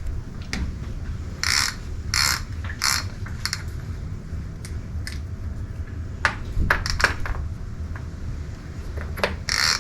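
Hand tools working on the Jeep: a ratchet wrench turned in four short strokes, then scattered metal clicks and clinks.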